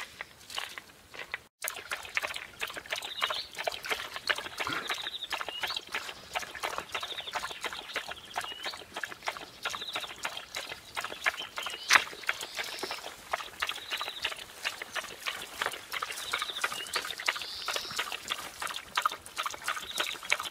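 Irish wolfhound lapping water from a shallow stream: a fast, steady run of wet splashing laps, with one louder slap about twelve seconds in.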